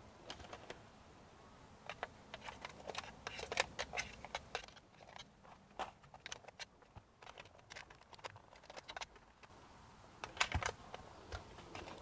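Faint, irregular light clicks and taps of hands handling the clear plastic dust canister of a handheld car vacuum over a paper plate, while working to free debris and stuck dog hair from it.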